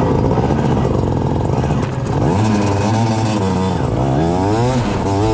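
Kart engine heard from the driver's seat, running low and uneven at first, then revving up in rising sweeps as the kart accelerates from walking pace.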